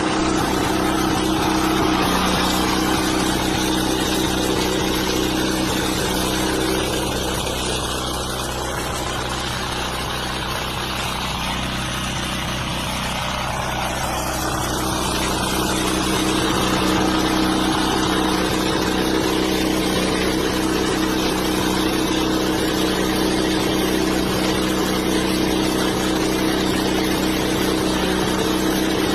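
Small engine of a Mametora walk-behind cultivator running steadily, easing off slightly for several seconds in the middle before returning to its earlier level.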